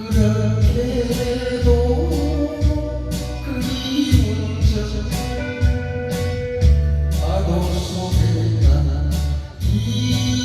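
Korean trot song playing: a singer's voice over a band with a steady beat and bass.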